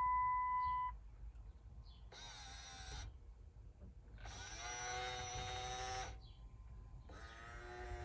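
A steady electronic warning tone stops about a second in. Then the new power mirror motor on a 2007 Dodge Ram 2500 whines in three separate bursts as the mirror glass is driven, checking that the new mirror's electrical connection works: first a short burst, then a longer one of about a second and a half, then a third near the end.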